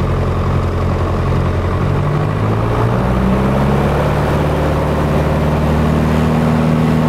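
Piper PA-28's piston engine and propeller heard inside the cockpit, the engine note rising in pitch about two seconds in as power comes up for the takeoff roll, then holding steady and a little louder.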